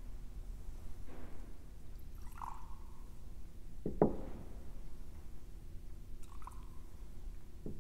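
Wine and water poured from small glass cruets into a chalice, with a few light ringing clinks and a soft knock about four seconds in, the loudest sound, and another soft knock near the end.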